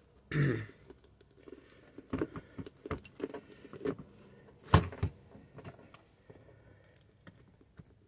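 Handling clatter of a plastic multimeter and its test leads being reattached: scattered light clicks and knocks, with one sharp click a little before five seconds in. A brief low sound comes just after the start.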